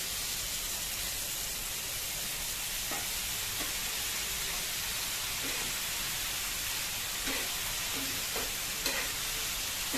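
Mutton liver sizzling and bubbling on a hot tawa griddle over a high flame, just after a splash of water went into the hot oil. A spatula scrapes and stirs the pieces a few times, mostly near the end.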